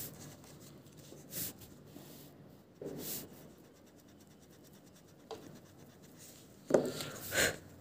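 White eraser rubbing pencil lines off sketchbook paper, heard as several short bursts of rubbing, the loudest ones near the end.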